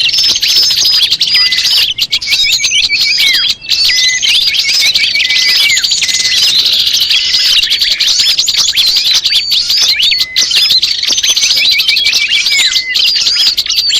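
A dense chorus of many small songbirds chirping, trilling and twittering over one another without a break. It is a bird-lure recording of 'noisy' small birds, used to attract wild small birds.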